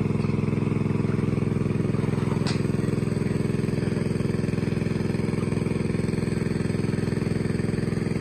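Small engine-driven water pump running steadily at one constant speed, a low, even motor drone with a fast regular pulse.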